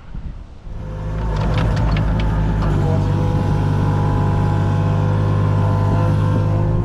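An engine starts about a second in and runs at a steady idle, with a few sharp clicks just after it starts.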